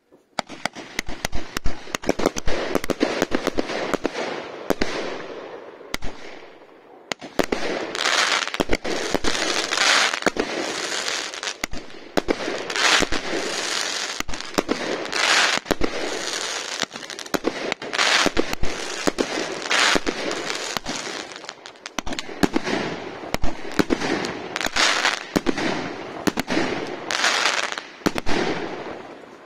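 A 47-shot consumer firework cake (Kompakt Dream Snow Country) firing shot after shot: rapid sharp reports with a hissing spell after many of them, and a short lull about five to seven seconds in.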